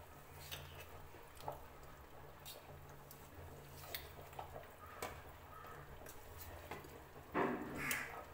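Thick chicken curry with roasted ground coconut bubbling in an open aluminium pressure cooker, with scattered soft pops and clicks over a steady low hum. Near the end a steel spoon stirs and scrapes in the pot.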